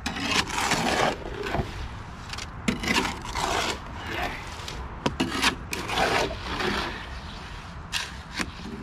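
Concrete being mixed by hand in a metal wheelbarrow: a tool blade scraping and chopping through the gritty wet mix, in repeated irregular strokes about once a second.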